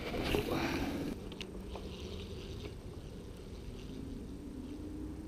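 A cast with a spinning rod: a swish and line hissing off a Van Staal 150 spinning reel for about a second, then a click. After that comes the faint steady purr of the reel being cranked as the lure is worked back.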